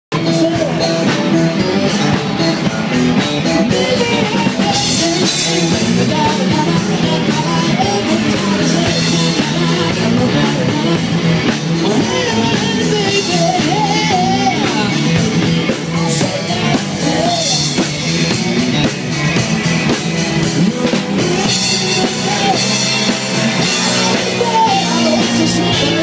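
A rock band playing live at a sound check: a singer over a drum kit, steady throughout.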